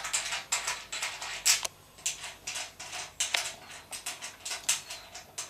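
Small screws being unscrewed by hand from the slotted side plate of a Dobsonian telescope tube, giving a string of light, irregular clicks and scrapes, two sharper ones standing out.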